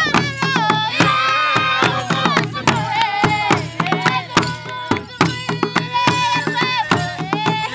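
Traditional Rwandan dance song: voices singing long, wavering held notes over frequent sharp percussion strokes.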